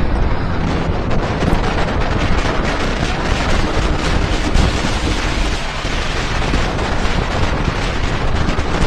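Heavy wind rushing and buffeting over the microphone of a motorcycle at speed, a steady deep rumble with no clear engine note standing out.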